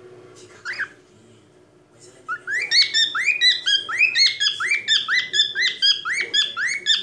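Cockatiel singing: a single short call about a second in, then from about two seconds in a fast run of repeated notes, each sweeping up and then dropping, about three a second.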